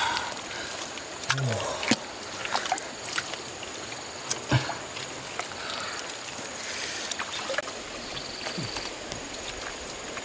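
Hands scooping and slapping wet mud and muddy water out of a hole in a stream bank: irregular wet squelches and splashes.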